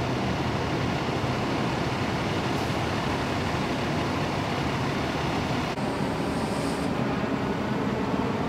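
Heavy diesel fire truck engines running, a steady loud rumble.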